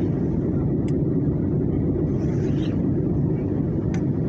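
Steady low rumble inside an airliner cabin, with a few faint clicks and faint voices in the background.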